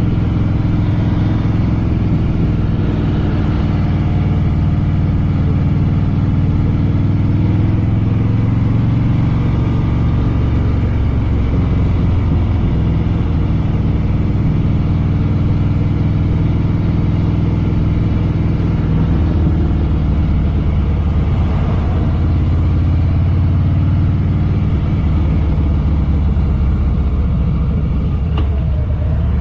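Harley-Davidson Fat Boy Lo's V-twin engine running steadily on the road, its pitch shifting a few times as the speed changes.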